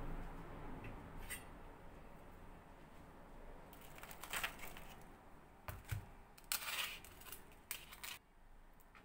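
Small objects being handled: a few sharp clicks and short scraping noises in the middle and near the end.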